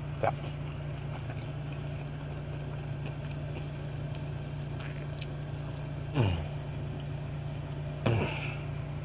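Steady low hum of a car's engine idling, heard inside the cabin. Three short falling vocal sounds from the man eating come about a quarter second in, about six seconds in and about eight seconds in.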